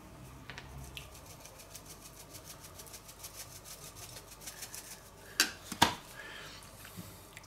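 Ground pepper being shaken from a small tin shaker: a fast, even rattle of faint fine ticks. This is followed by two sharp knocks about five and a half seconds in.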